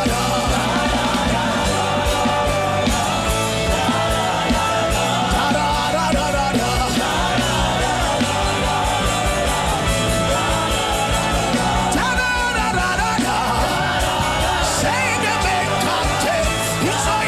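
A congregation praying aloud all at once, many voices crying out and travailing together over steady backing music.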